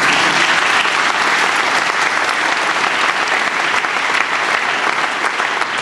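Audience applauding: dense, steady clapping from a hall full of people.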